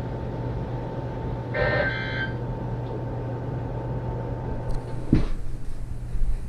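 Dead air on a weather radio receiver: a steady low hum and hiss, with a short electronic beep about one and a half seconds in and a sharp click about five seconds in.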